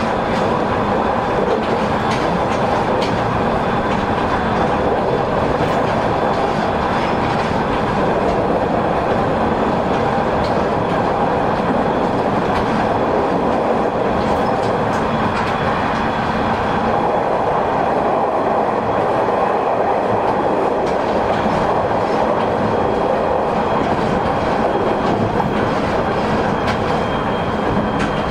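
Interior running noise of a JR East 209 series 2100-subseries electric commuter car (209-2125) travelling steadily between stations. A constant rumble of wheels on rail carries a faint high whine and occasional light clicks over rail joints.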